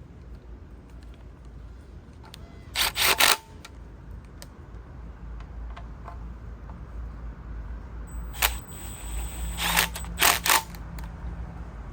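Hand tools working the oil pan bolts on a Volvo B230 engine: light clicking throughout, with a quick cluster of sharp metallic clatters about three seconds in and several more from about eight and a half to ten and a half seconds in.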